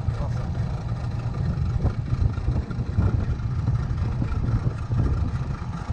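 Low, unsteady rumble of wind buffeting the microphone on an open boat at sea, with a few faint knocks.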